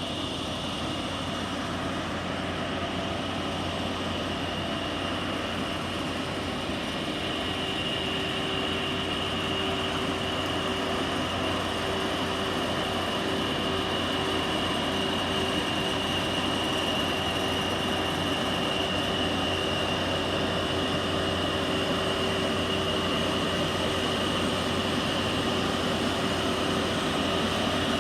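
Concrete saw cutting asphalt: a steady mechanical drone with a constant high whine, slowly growing louder.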